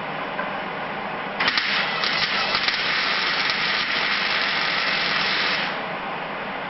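MIG welder laying a bead on thin sheet steel: a sudden crackling, spattering arc starts about a second and a half in, runs steadily for about four seconds and cuts off. A steady hiss sits underneath throughout.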